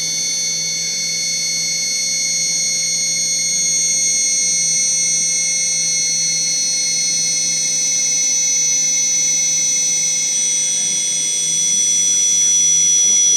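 T2000 running during a cold start, giving a steady high-pitched whine made of several tones that drift slowly down in pitch. The tones shift slightly about ten seconds in, and the whine gets a little louder after that.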